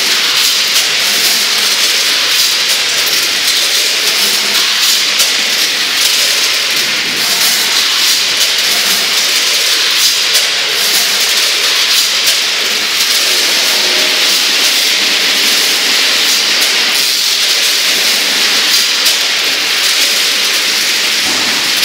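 Steady hissing machine noise from a running multihead weigher packing line, with faint ticks and rattles over it.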